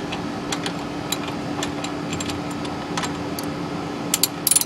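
Socket wrench clicking and tapping on a truck's oil drain plug as it is worked loose, in irregular single clicks with a quick loudest cluster near the end, over a steady background hum.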